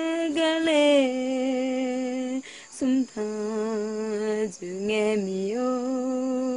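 A woman singing unaccompanied in a slow, chant-like melody. She holds long notes with a wavering vibrato that step down in pitch, with short breaths between the phrases.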